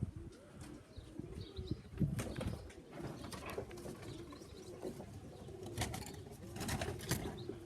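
Pigeons cooing, low repeated coos with a few sharp clicks among them.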